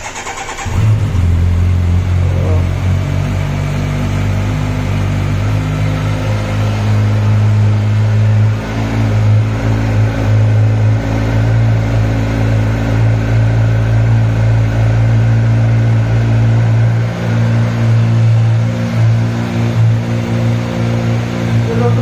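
Kawasaki Ninja 1000SX's inline-four engine firing up and then idling steadily through its stock single-sided exhaust, the idle note shifting slightly in pitch a few times.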